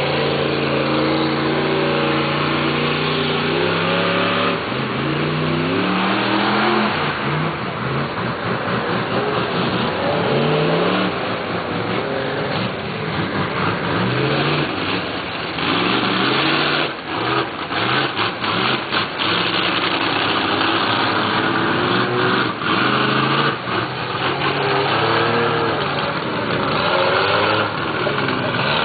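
Big 4x4 mud trucks' engines revving again and again as they push through a flooded mud pit, the pitch climbing with each burst of throttle, under a steady hiss.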